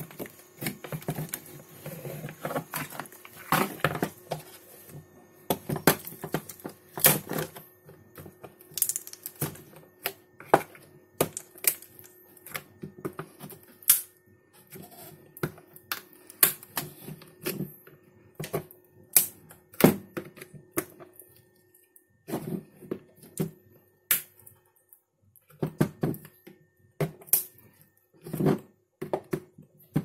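Irregular clicks, taps and cracks of a screwdriver prying a washing machine control circuit board out of its plastic housing, the board's glue softened by heating it under a lamp.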